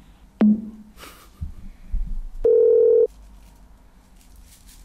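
Telephone line sounds as a call ends: a sharp click, a few low thumps and rustles, then a single loud electronic phone beep lasting about half a second.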